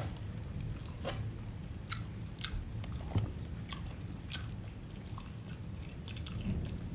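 A person chewing and biting into fried chicken close to the microphone: scattered small crisp crunches and mouth clicks, over a steady low hum.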